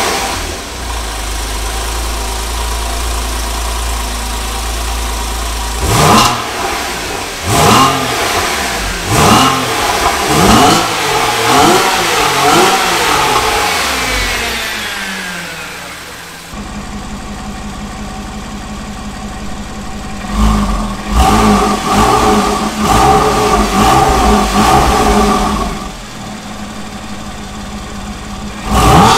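Porsche 911 Carrera (991.1) flat-six idling on the stock exhaust, then blipped in a run of about six quick stationary revs to roughly 2,000 and 4,000 rpm, each rising and falling back before it settles to idle. After an abrupt change, it idles and is revved again several more times, with one last rev near the end.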